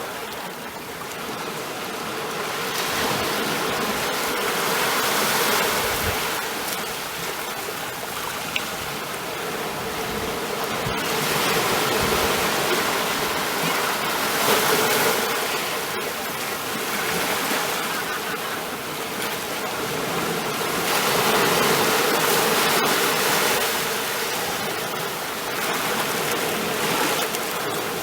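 Ocean waves breaking and washing on the shore, a continuous rushing surf that swells and ebbs slowly, cresting roughly every seven or eight seconds.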